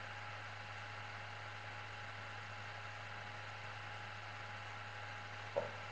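Steady low electrical hum with a faint hiss: the background noise of the recording while nothing else sounds. A single brief sound comes about half a second before the end.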